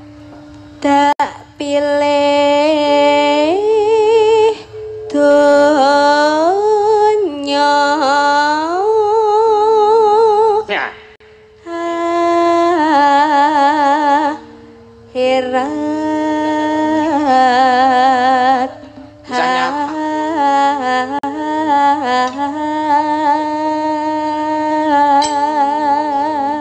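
Sinden (Javanese female gamelan singer) singing a melismatic vocal line with wide vibrato, in phrases a few seconds long with short breaks between them, over a sustained instrumental accompaniment.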